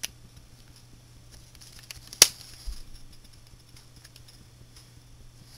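One sharp click about two seconds in, followed by a few faint ticks, from fingers working the plastic cube pieces, over a low steady hum.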